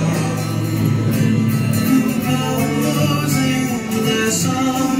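Music: a song with guitar and singing.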